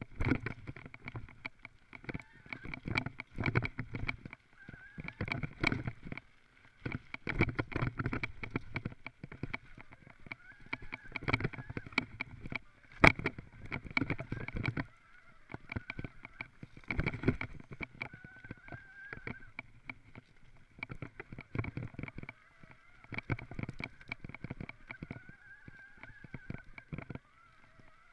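Mountain bike rattling and clattering over a rough dirt trail: dense, irregular knocks and low thumps as the wheels hit bumps, with a sharper knock about halfway through. A faint wavering whine runs underneath.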